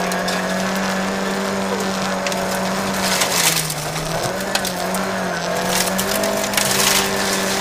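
Volvo 940 Evo rally car's engine running hard at high revs in fifth gear, heard from inside the cabin, its note dipping briefly twice before picking up again. Gravel crackles and stones rattle against the car, loudest about three seconds in and again near the end.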